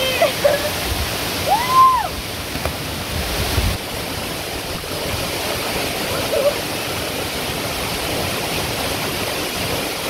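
Waterfall rushing steadily. A few short pitched calls, one rising and falling, sound over it in the first two seconds.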